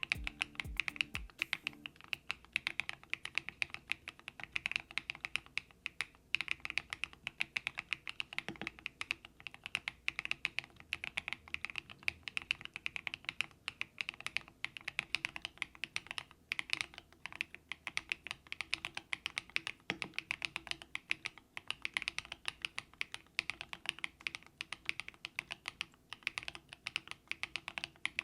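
Continuous typing on a KIIBOOM Breeze75 mechanical keyboard with a half-aluminium, half-acrylic case: a steady stream of key presses, several per second, with no pauses.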